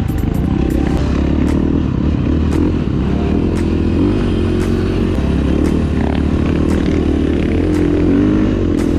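KTM single-cylinder four-stroke dirt bike engine running hard through sand, its pitch rising and falling as the throttle is worked, with sharp ticks now and then.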